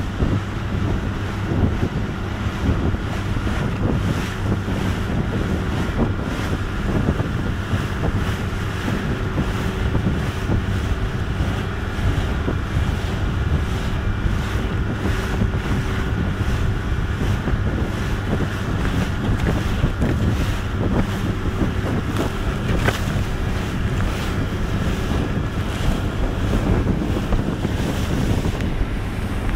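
Rigid inflatable boats running at high speed through chop: heavy wind buffeting on the microphone and rushing spray over a steady outboard-engine drone, with frequent short slaps of the hull on the waves.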